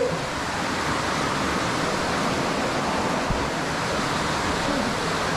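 Steady rush of flowing water in a cave, an even, unbroken noise.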